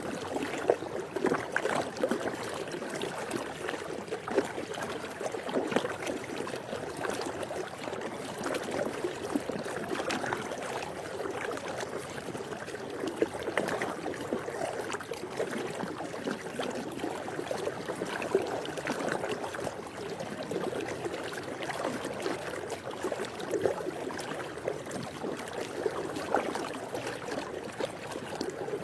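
Swimming pool water moving continuously, with frequent small, irregular splashes standing out.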